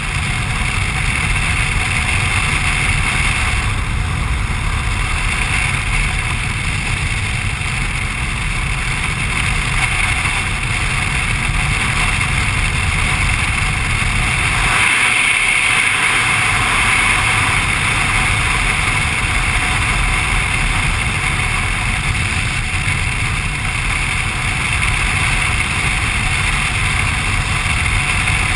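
BMW R1200RT motorcycle's flat-twin boxer engine at a steady cruise under heavy wind rush and road noise. About halfway through, the low rumble drops away for a couple of seconds while the hiss grows brighter.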